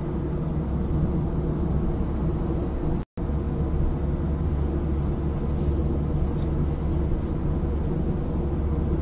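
Steady low road and engine rumble inside a car cruising at motorway speed. The sound cuts out completely for a split second about three seconds in.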